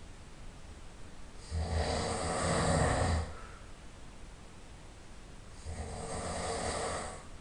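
A person snoring loudly in their sleep: two long snores about four seconds apart, the first about a second and a half in and a slightly quieter one near the end.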